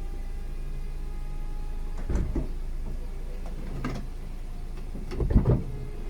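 VW Eos folding hardtop cycling on its hydraulic roof mechanism: a steady hum of the pump over the idling engine, with three clunks as the roof panels move and seat, the last one the loudest.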